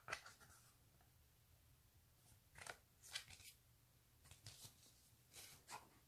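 Faint handling noises of small packaged items being unboxed: a few brief rustles and scrapes, some in quick pairs, with quiet between them.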